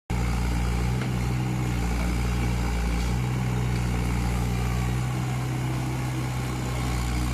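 Komatsu excavator's diesel engine running steadily with a low, even hum.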